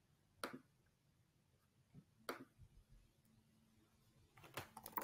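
Near silence with a few faint computer mouse and keyboard clicks: single clicks about half a second in and a little after two seconds, then a quick run of clicks near the end.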